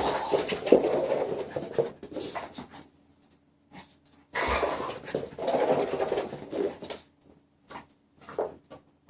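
A Maltese dog panting in two spells of about two and a half seconds each, followed by a few short, separate sounds near the end.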